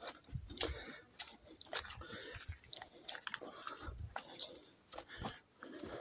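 Footsteps crunching irregularly on a stony gravel trail, mixed with rubbing and knocking from the phone handled while walking.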